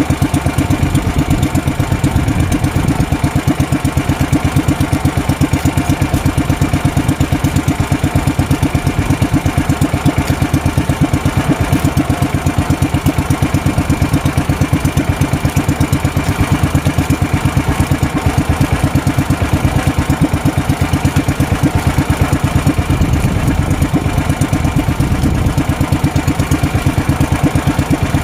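Small fishing-boat engine running steadily at an even speed, with a fast, regular chugging pulse.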